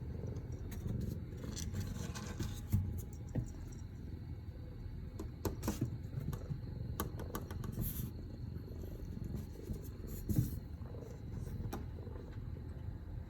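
A cat purring with a steady low rumble, with scattered light clicks and knocks over it.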